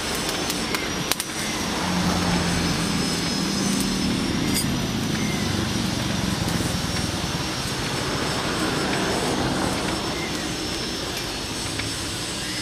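Steady rumbling noise with a low hum, strongest in the first half, and a single click about a second in.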